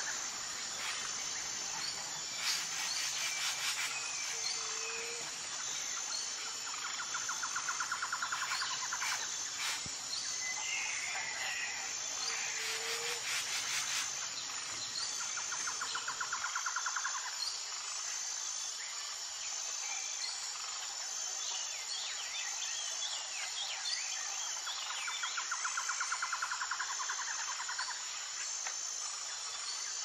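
Jungle ambience: a continuous high-pitched insect drone, with a pulsing trill that comes in bouts of a couple of seconds every several seconds, and scattered short bird chirps. A faint low rumble underneath drops out about halfway.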